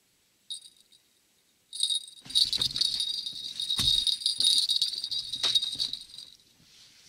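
Small bite bell on a fishing rod jingling: a brief ring about half a second in, then continuous jingling for about four seconds, the sign of a fish biting. Knocks from the rod being handled are mixed in.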